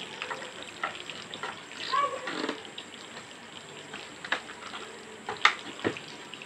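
Faint scattered clicks and taps from a petrol chainsaw being handled as it is readied to start, with a brief chirp-like sound about two seconds in.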